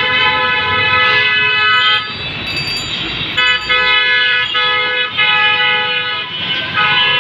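Vehicle horn honking repeatedly: one long blast of about two seconds, then a string of shorter blasts, over street noise.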